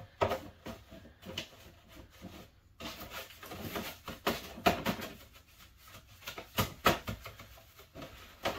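A paintbrush worked around in paint thinner inside a small plastic container to loosen sticky oil-based stain from its bristles: irregular scrapes and sharp knocks of the brush against the plastic. The loudest knocks come about halfway through and again about a second and a half later.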